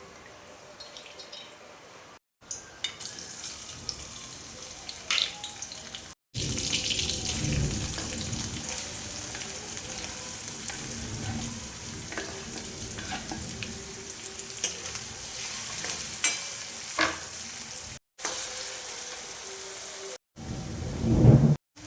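Food sizzling in hot oil in a pan while it is stirred, with scattered scrapes and clicks. The sound drops out briefly several times.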